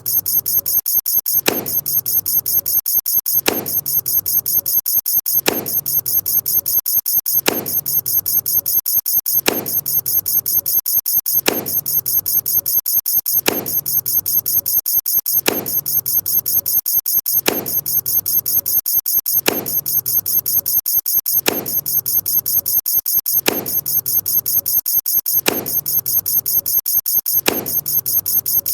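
A rapid, unbroken stream of short, high-pitched clicks or squeaks, many per second, from sound effects triggered one after another. About every two seconds a louder sound falls in pitch over a low thud.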